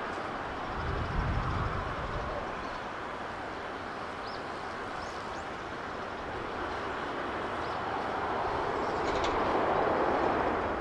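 Jet airliner on its landing rollout: a steady engine roar that grows louder over the last few seconds.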